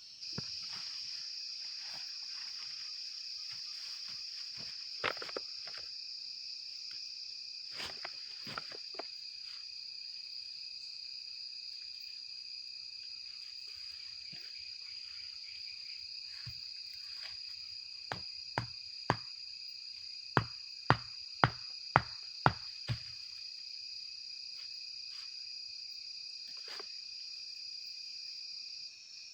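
Steady high-pitched drone of crickets and other insects. About two-thirds of the way through comes a run of about ten sharp knocks, roughly two a second; a few single knocks come earlier.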